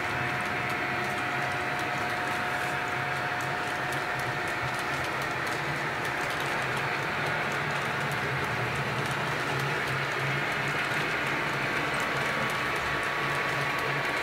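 Model train of autorack cars rolling past on layout track: a steady rolling rumble of small wheels on rail, with light scattered clicks.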